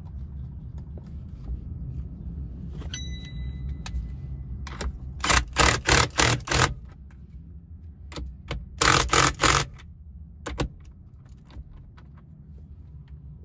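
Hand ratchet wrench tightening the steering-wheel retaining nut: two runs of quick ratcheting strokes, about five and then about four, with one more stroke after them. A faint steady beep sounds briefly before the first run.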